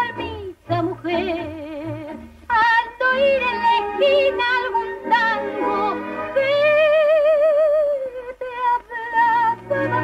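A woman singing a tango with wide vibrato, accompanied by a tango orchestra of piano, violins and bandoneons; she holds one long note a little past the middle.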